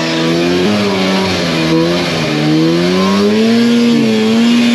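Snowmobile engine running under throttle while riding, its pitch dipping about half a second in, climbing gradually over the next few seconds and falling off near the end.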